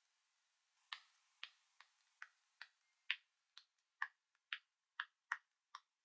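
Rainbow silicone pop it fidget toy having its bubbles pushed in one after another with the thumbs: a string of sharp little pops, about two a second, starting about a second in and varying in loudness.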